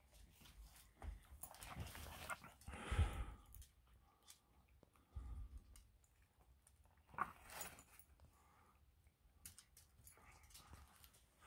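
A long-haired tabby cat feeding from a cardboard fried-chicken box: paper and cardboard rustling and knocking as it works at the chicken, with a few faint short vocal sounds from the cat. The loudest moments come about two to three seconds in and again at a sharp burst about seven seconds in.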